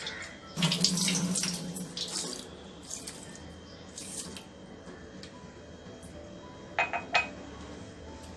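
Water poured from a glass into a steel pot of dry sugar to start sugar syrup, splashing loudest for the first second or so, then more quietly. Two or three quick clinks near the end.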